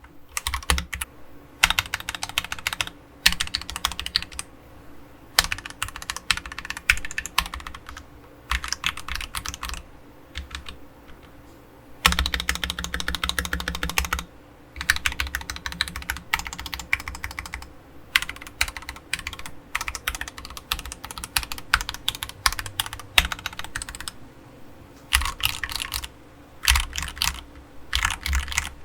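Akko 3068B Plus mechanical keyboard with Akko Jelly Purple tactile switches: its stabilized keys pressed over and over, clacking in bursts of rapid presses with short pauses between, a test of how the stabilizers sound.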